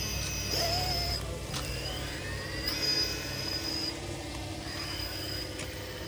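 Electric motor and gear drivetrain of a radio-controlled rock crawler whining as it climbs steep rock. The pitch rises in short spurts of throttle.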